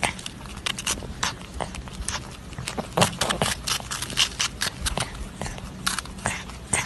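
A marmot chewing and crunching food held in its front paws: quick, irregular crunching clicks.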